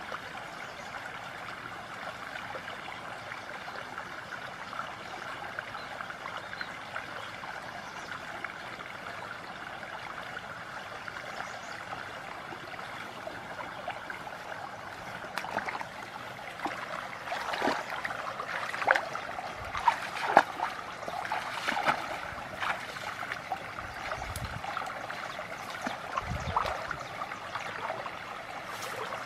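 Small shallow stream trickling steadily. In the second half a run of sharp rustles, knocks and small splashes comes over it, loudest around the middle.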